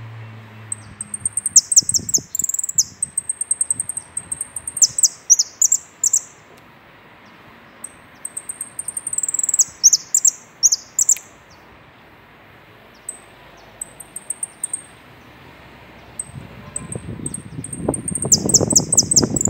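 Caged saffron finch (jilguero) singing its full song: several bouts of high, rapid trills and chirps with short pauses between. Near the end a low rumbling noise rises under the song.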